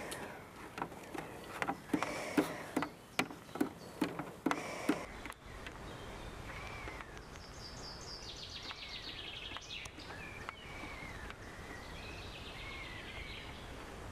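A run of sharp knocks or taps, roughly two a second, for the first five seconds. Then songbirds call over steady outdoor background noise: short repeated chirps and a couple of fast trills.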